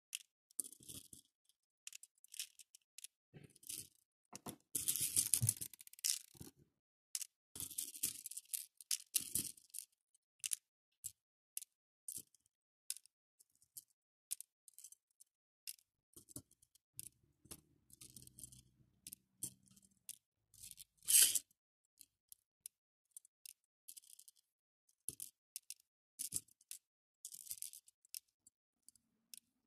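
Small faux pearl beads clicking and rattling against each other and a clear plastic dish as fingers pick through them: irregular light clicks, with one louder clack about two-thirds of the way through.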